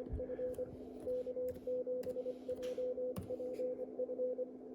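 Morse code (CW) from a Hungarian amateur station on the 10-metre band, received on an ICOM 7610 transceiver: a mid-pitched tone keyed on and off in dots and dashes over a steady low hum. A few sharp clicks sound along with it.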